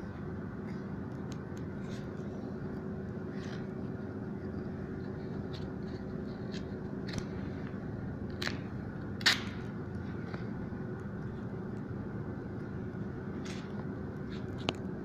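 Steady low background hum with a few short clicks and crackles of adhesive tape being handled and pressed into place inside an opened tablet, the loudest about nine seconds in.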